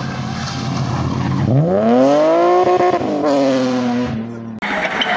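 Rally car engine running low through a hairpin, then revving hard in a sharp rising sweep about a second and a half in as it accelerates out of the bend, held high and then wavering as it pulls away. Near the end the sound cuts abruptly to a noisier car sound.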